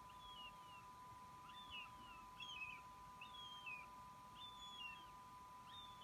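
Young northern goshawks giving faint, thin begging calls at the nest, short high notes that fall in pitch, repeated about once a second. A steady faint hum runs underneath.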